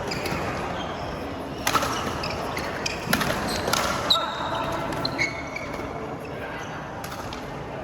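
Badminton rally: several sharp racket-on-shuttlecock hits over a few seconds, with short high squeaks from shoes on the court and background chatter.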